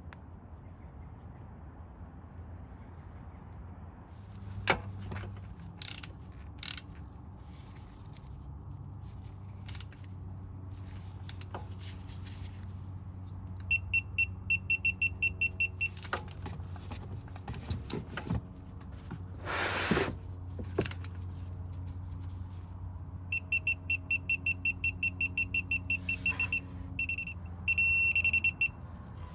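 An electronic beeper sounding in two rapid series of high beeps, about four or five a second, then one longer held beep near the end. Underneath runs a steady low hum with a few scattered knocks and clicks.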